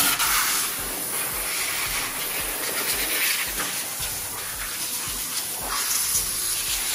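Compressed-air blow gun on an air hose blasting air into a car's engine bay to blow out leaves and sand: a steady hiss that starts suddenly.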